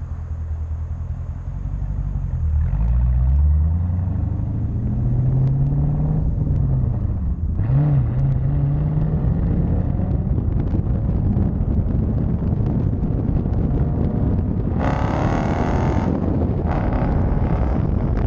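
Muffler-deleted Dodge Challenger Scat Pack's 6.4-litre HEMI V8 exhaust heard from inside the car while driving. The revs climb about two seconds in, drop and climb again around four and near eight seconds, then hold steady, with a short rush of noise about fifteen seconds in.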